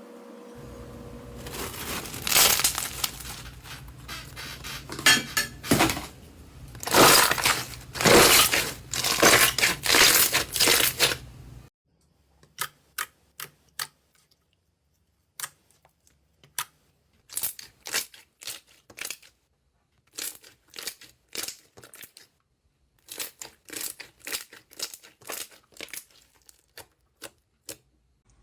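Slime being squeezed and pressed, crackling and popping densely for the first dozen seconds; after an abrupt change it gives sparser clusters of short sharp clicks and pops.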